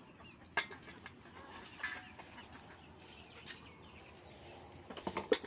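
Domestic chickens clucking, with a few scattered sharp knocks and a cluster of clatter near the end that is the loudest sound.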